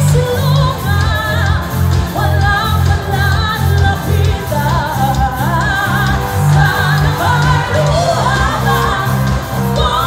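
Live pop-rock band playing with women singing the lead, over electric guitars, bass, keyboards and drums with a steady beat, heard through the venue's PA.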